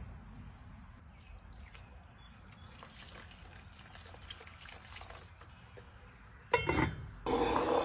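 Stock poured into an enamelled cast-iron Dutch oven, a faint liquid pour and trickle. Then a sudden loud clank about six and a half seconds in and a louder scraping clatter near the end as the heavy cast-iron lid is set back on the pot.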